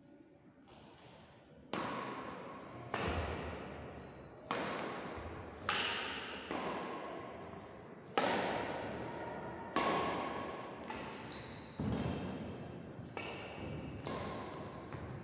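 Badminton rally: rackets striking the shuttlecock about eleven times, roughly once every second or so, each sharp hit ringing on in the echo of a large hall.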